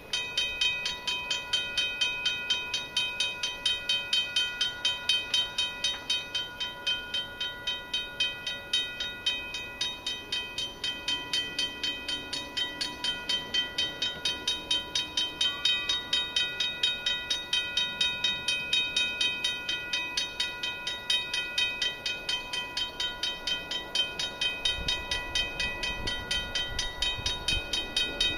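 Railway level-crossing warning bell ringing in rapid, even strokes, starting suddenly as the crossing signals activate for an approaching train. A low rumble comes in near the end.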